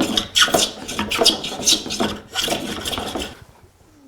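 Wood being worked by hand with quick back-and-forth abrading strokes, about two to three a second, stopping about three and a half seconds in. This is a part being trimmed down to fit.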